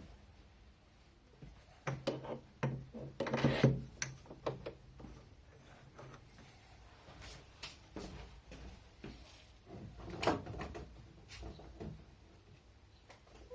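Knocks and rattles of hard objects being handled, a busy cluster about two to four seconds in and another knock about ten seconds in, with scattered clicks between.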